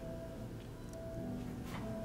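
Soft background music with long held notes, and a faint click near the end.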